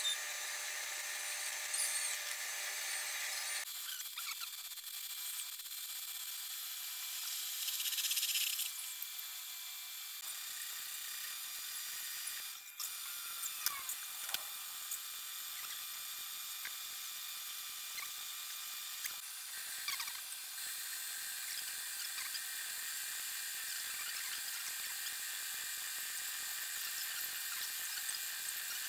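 Metal lathe running with a steady high whine while a tool cuts the metal piston blank, the cutting rising to a louder squeal for a couple of seconds. A few sharp clicks come about halfway through.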